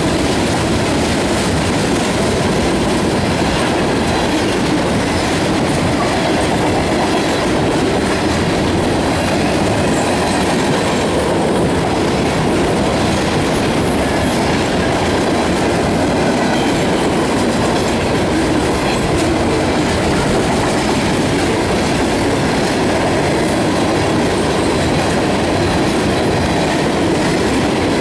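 Freight train cars (tank cars and covered hoppers) rolling past close by: a loud, steady rumble and clatter of steel wheels on the rails.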